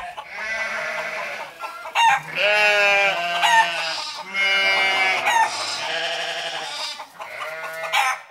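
Farmyard animal calls: a rooster crowing several times over a second or so each, mixed with bleating.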